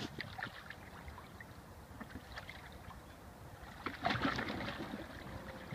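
Ducks bathing in a plastic tub of water: soft sloshing and small drips, then about four seconds in a louder burst of splashing as one duck flaps its wings in the water.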